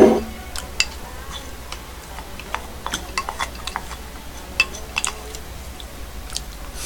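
Chopsticks and a spoon clicking and tapping against ceramic bowls while eating: a scattered string of small, light clinks. It opens on the tail of a brief louder noise.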